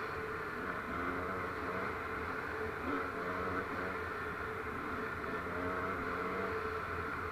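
Off-road vehicle's engine running while driving along a dirt track, its note rising and falling slightly, over a steady rush of wind and tyre noise.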